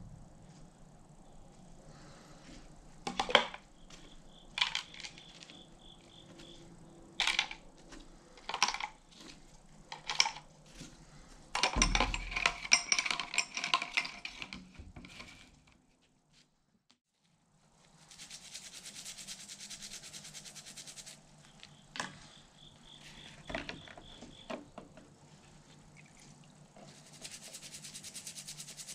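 Small steel parts of a disassembled Plomb ratchet dropped one by one into a plastic coffee can, each landing with a sharp clink, then a few seconds of dense rattling. Later, a steady scratchy scrubbing of a brush on a part, with a few clicks between.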